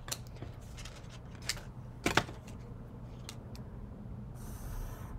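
Scissors and paper handled on a wooden desk: a few light clicks and taps, the loudest about two seconds in as the scissors are set down. Near the end a pencil starts scratching on paper, drawing a shape.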